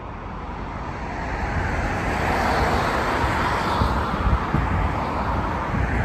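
Road traffic passing close on a dual carriageway: cars, a box truck and a motorcycle, their tyre and engine noise swelling about a second in and staying loud over a low rumble.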